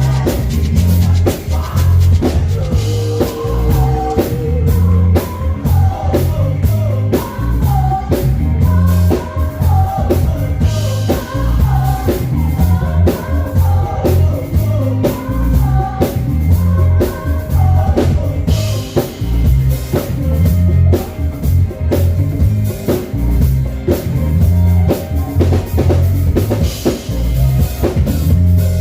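A song playing: a drum kit and heavy bass keep a steady beat under a melodic instrumental line, with no words.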